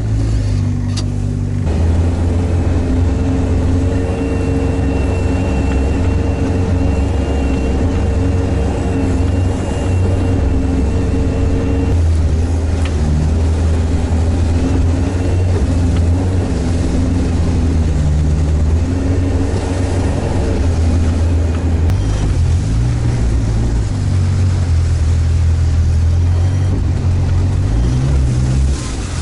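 Sherp all-terrain vehicle's four-cylinder diesel engine running under way, heard from inside the cab: a loud, steady drone whose pitch shifts about 2, 12 and 20 seconds in.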